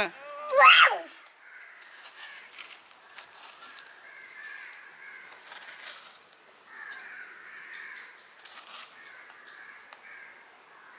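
Crows cawing: one loud call about half a second in, falling in pitch, then fainter caws scattered through, with a few short scraping rustles between them.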